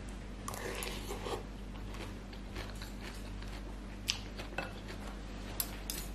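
Eating sounds from a mouthful of rice noodles, then a metal spoon and fork clinking against a ceramic soup bowl in several sharp clicks over the last couple of seconds. A steady low electrical hum sits underneath.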